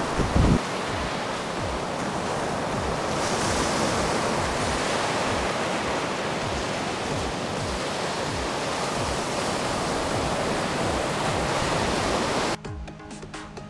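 Small surf breaking and washing up a sandy beach: a steady rush of waves, with low wind buffets on the microphone and one loud thump about half a second in. The wave sound cuts off near the end and music takes over.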